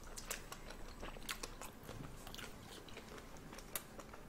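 Faint chewing of a mouthful of cooked shrimp, heard as a scatter of small, irregular clicks.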